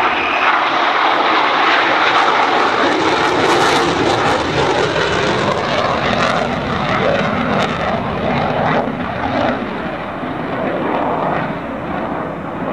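Engine noise of an airshow formation flyby: an F/A-18 Hornet flying with two older jets and a propeller warbird. It is a steady loud roar that eases off somewhat after about six seconds as the formation draws away.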